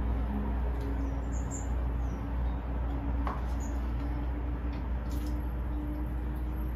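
Steady low background hum with a few short, faint high chirps and light ticks scattered through it.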